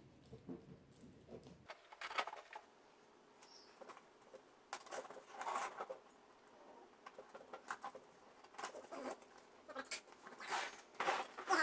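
Cardboard box being handled and opened: irregular scraping and rustling of cardboard and tape in short bursts, loudest near the end.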